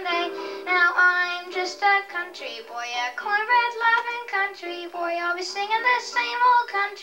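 A boy singing a song into a microphone over a PA, accompanied by an electronic keyboard.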